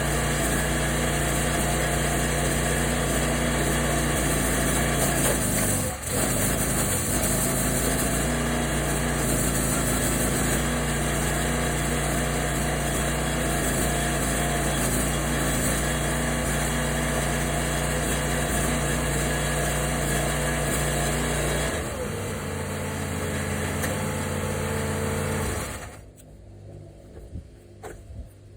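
Small Kohler 6.5 hp engine on a log splitter running steadily, with a brief break in the sound about six seconds in and a change in its note about twenty-two seconds in. It cuts off about four seconds before the end.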